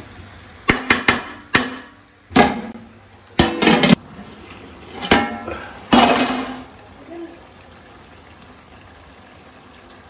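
Wooden spatula stirring chicken curry in an aluminium pot, knocking and scraping against the pot in a string of sharp clatters over the first six seconds. After that there is only a soft, steady hiss of the curry cooking.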